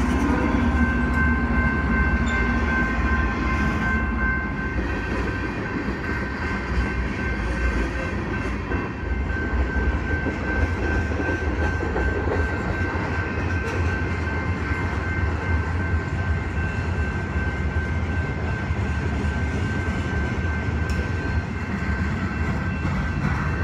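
A BNSF freight train of autorack, tank and covered hopper cars rolling past: a steady rumble and clatter of wheels on rail, with a thin, steady high ringing tone over it.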